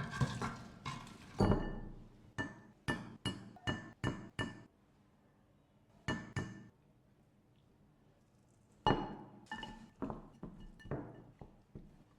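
Hard kitchenware clinking: a utensil strikes a dish or pan again and again in short runs of sharp, ringing taps.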